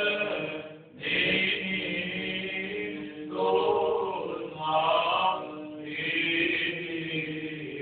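Men's voices chanting Serbian Orthodox liturgical chant for the dead, several voices holding long sung notes together, with a short pause for breath about a second in.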